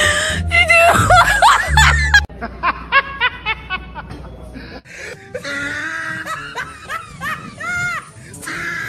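Laughter in quick, repeated bursts over background music.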